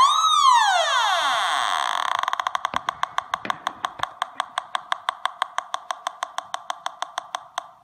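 Homemade Pi Polones pulse-induction metal detector's audio signal: a continuous buzzing tone with a quick rise-and-fall swoop in pitch as pliers pass over the search coil. After about two and a half seconds it breaks up into a rapid train of even clicks, about five a second, getting fainter. This is the detector's threshold ticking once the metal is gone.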